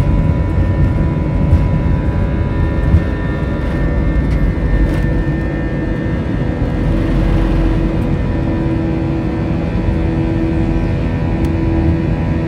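Airbus A320 jet engines at takeoff thrust, heard inside the cabin over the wing, with the rumble and a few sharp thumps of the wheels rolling down the runway. Past the halfway point the rumble eases into a steadier engine hum as the airliner lifts off.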